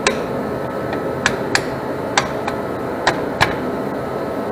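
Sharp metal clicks and taps, about six of them, unevenly spaced, from a car's rear drum brake parts being handled, over a steady background noise.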